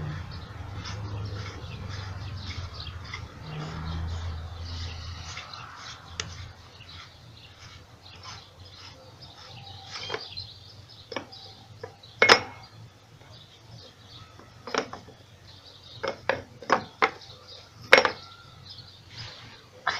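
Metal plumbing fittings and a pipe wrench clinking and knocking as a loosened nut on a submersible pump's pipe is unscrewed and taken apart. The first few seconds hold low handling rumble. About halfway through, sharp separate clinks begin, about ten of them, two much louder than the rest.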